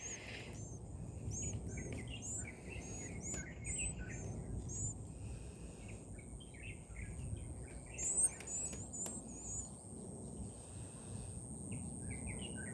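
Small birds chirping: many short, high chirps scattered throughout, with a quick cluster about eight seconds in, over a faint steady high whine.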